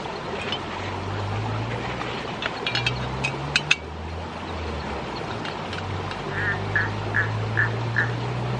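Frogs croaking at night, including a run of about five quick, evenly spaced croaks in the second half. A few sharp metallic clicks come around three seconds in as a stove is fitted onto a gas canister.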